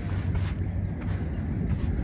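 Wind buffeting the microphone: an uneven low rumble with a light hiss over it.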